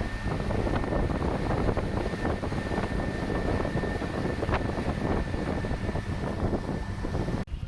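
Wind buffeting the microphone on a moving motorboat, the engine running underneath, with a thin steady whine above it. The sound cuts out for an instant near the end.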